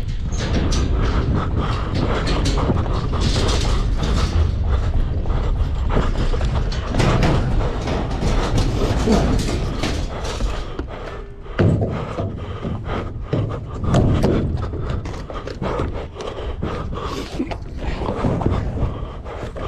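Footsteps striking and scraping on the steel grating walkways of freight railcars, many quick footfalls with a few heavier landings, over a steady rumble of wind buffeting the microphone.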